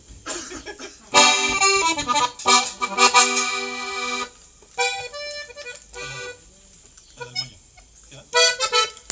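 Accordion played in short bursts of sustained chords and quick notes, with pauses between, as it is tried out during a sound check.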